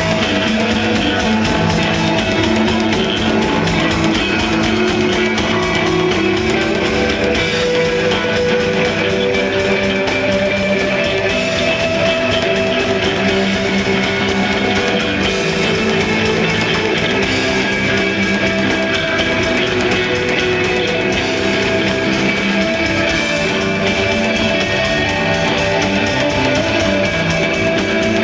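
Desert rock band playing live: electric guitar over bass and drums, loud and steady.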